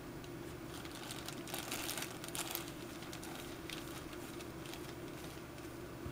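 Light rustling and small taps of leather pieces being handled and moved about on a cutting mat while dyeing, busiest about one and a half to two and a half seconds in, over a steady low hum.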